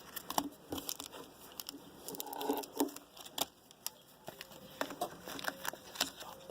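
Trading card pack wrappers crinkling and tearing as packs are cut and pulled open, in irregular sharp crackles, busiest about two to three seconds in.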